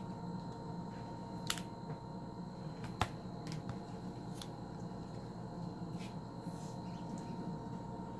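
Small scissors snipping into ball python eggs: a few short sharp clicks, the two loudest about a second and a half and three seconds in, over a steady low hum.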